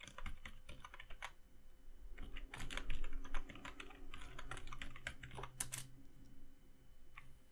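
Computer keyboard typing: a few keystrokes, a short pause, then a fast run of keystrokes that stops about six seconds in, with one more click near the end.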